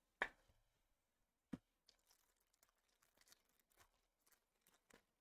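Near silence with a few faint clicks and rustles of trading cards and pack wrappers being handled, the two clearest about a quarter second and a second and a half in.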